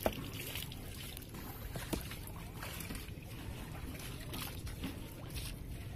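Handling of fish in a plastic basin: two sharp knocks, at the start and about two seconds later, with light rustling between them, over faint water lapping around a small boat.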